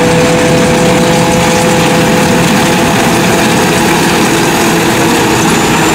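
Crawler-tracked rice combine harvester built by the Sit Charoen workshop, running steadily as it drives across the field: a constant engine and machinery drone with a steady whine.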